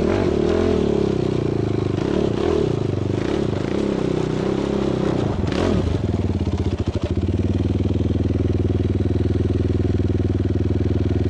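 Quad bike engines running, their pitch rising and falling for the first six seconds, then settling into a steady idle about seven seconds in.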